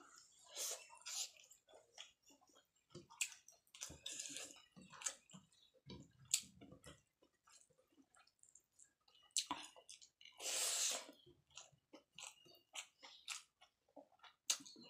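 Close-up chewing of grilled chicken and rice, with many small wet mouth clicks scattered irregularly and a short rushing burst about ten seconds in.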